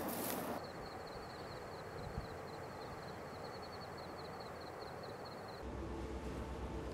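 Outdoor ambience: a steady, fast-pulsing high-pitched trill over faint background hiss, which cuts out near the end as a steady low rumble starts.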